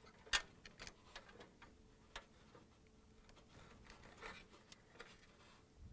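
Faint, scattered clicks and light handling noise of wire spade connectors being pushed onto the terminals of a dryer timer, the sharpest click about a third of a second in.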